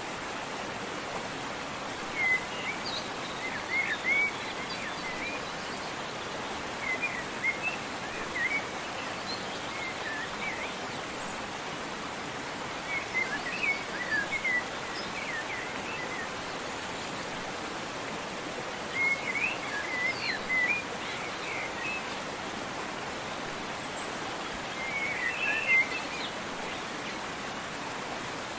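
Small birds chirping in short runs of quick notes, a run every few seconds, over the steady rush of a waterfall.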